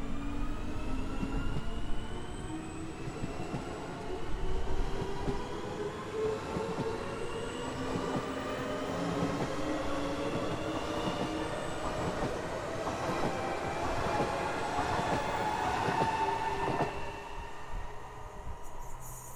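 Two coupled SL X60B (Alstom Coradia Nordic) electric commuter trains pulling away, their traction motors' whine rising steadily in pitch as they gather speed, with wheels clicking over the rails. It quietens about 17 seconds in.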